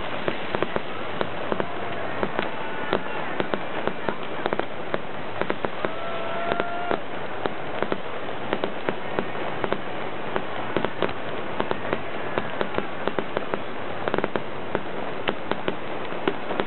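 Aerial fireworks going off: a fast, irregular run of sharp pops and cracks, several a second, over a steady noise.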